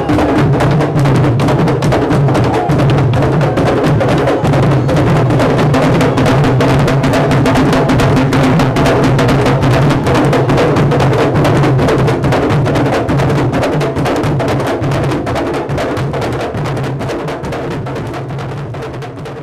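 Candombe drum line of tambores played with a bare hand and a stick, a dense rhythm of drumhead strokes and sharp stick clicks. It fades out steadily over the last several seconds.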